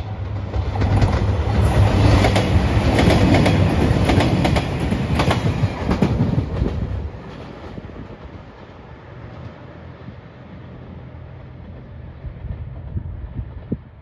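A three-car JR Shikoku 2700 series diesel express train passing close by: a loud low engine drone with the wheels clacking rhythmically over the rail joints. After about seven seconds it drops to a fading rumble as the train moves away.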